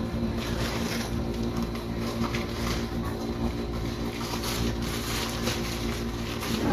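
A steady low machine hum, with short bursts of paper rustling as a paper bag is handled.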